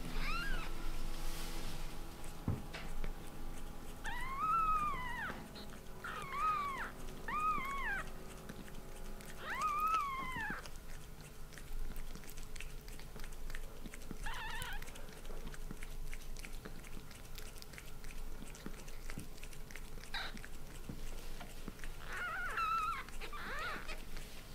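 Newborn kittens mewing: short, high-pitched cries that rise and fall, several in quick succession in the middle and more near the end, over soft clicking from the mother cat licking them as they nurse.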